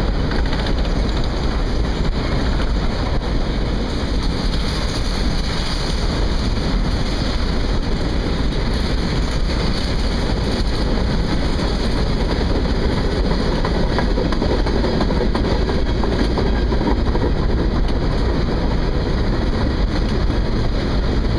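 Freight train of loaded covered hopper cars rolling past close by: a steady, unbroken rumble and rush of steel wheels on the rails, mixed with wind noise on the microphone.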